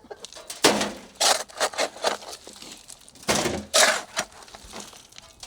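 A shovel scraping through broken concrete rubble, with chunks clattering. It comes as a series of irregular scrapes and knocks, the loudest about a second apart.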